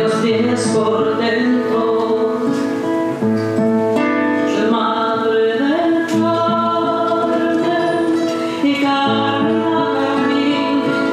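A woman singing long held notes while accompanying herself on acoustic guitar.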